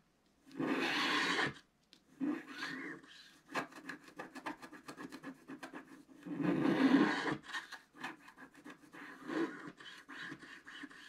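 Wooden stylus scratching the black coating off scratch-art paper: a run of short scraping strokes, with a longer scratch near the start and a louder, longer one about six seconds in.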